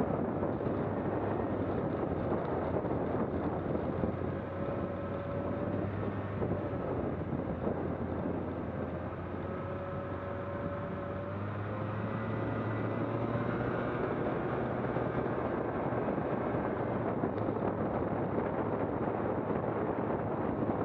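A vehicle engine running steadily under way, its tone drifting slightly in pitch over a constant rushing noise.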